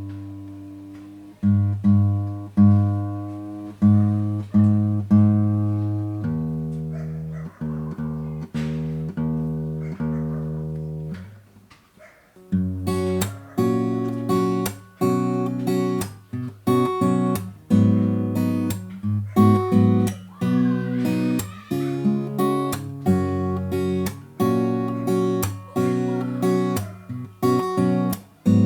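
Yamaha FG-720 acoustic guitar with a spruce top and mahogany back and sides, played as a demo. Chords are struck and left to ring for the first half. After a brief near-silent pause just before the middle, it breaks into brisker, busier strumming.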